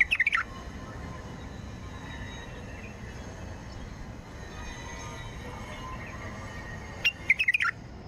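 White-eared bulbul (Baghdad bulbul) singing two short phrases of quick notes, one at the start and one near the end.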